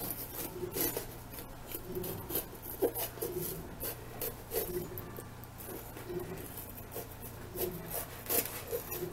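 Kitchen knife sawing around the stem of a bell pepper held in the hand: a run of short rasping cuts through the pepper's flesh, about two a second.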